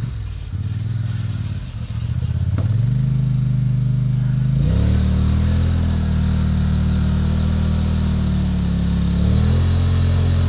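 Polaris ATV engine revving under hard throttle as the quad ploughs into a mud hole and its wheels spin, bogging down until it is stuck. The revs climb about three seconds in and again near five seconds, then hold high with a brief dip near the end.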